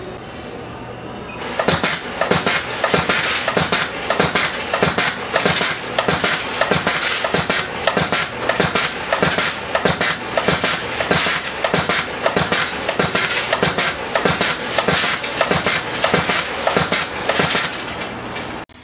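Servo-controlled roll feed with a pneumatic cutter head cutting wire into short lengths: a fast, steady run of sharp cutter strokes, several a second. It starts about a second and a half in and stops abruptly near the end.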